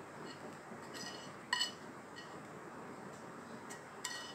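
Two short ringing clinks of a metal saucepan against kitchenware, one about a second and a half in and another near the end, while thick chocolate sauce is poured out of the pan.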